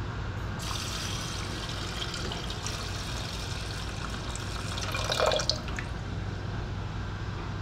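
Water poured from a pitcher into a stainless steel pot of dry rice, a steady splashing stream that starts about half a second in and stops around six seconds in. The rice is being given its measured cooking water before pressure cooking.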